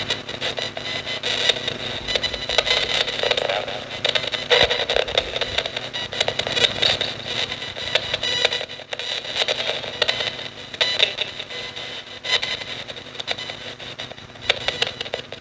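Nanocom Coffin Edition spirit box scanning through radio stations: continuous choppy static broken up many times a second, with clipped snatches of station sound as it sweeps.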